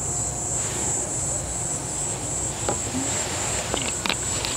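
Makgeolli glugging as it is poured from a plastic bottle into a glass mug, over a steady high chirring of insects. A few light clicks come near the end.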